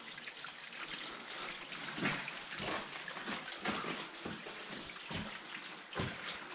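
Water dripping and trickling down a wet cave wall, a steady spattering patter. From about two seconds in there is a series of soft knocks and thumps, the loudest two near the start and the end of that stretch.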